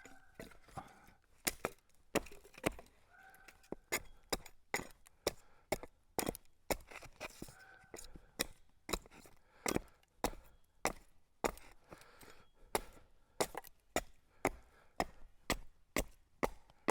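Axe chopping cedar in quick, repeated short strikes, about one to two a second, as a cedar shake is trimmed and shaped by hand.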